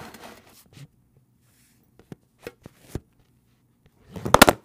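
Handling noise from the filming camera being picked up and repositioned: a short rustle, a few light clicks, then a loud clatter of knocks near the end.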